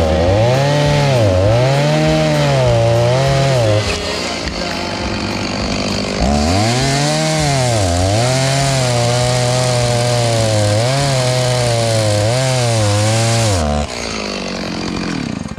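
Two-stroke chainsaw cutting through a dry jarrah log at high revs. The engine pitch repeatedly sags and recovers as the chain bites into the hardwood. It eases off briefly about four seconds in and again near the end as the cut finishes.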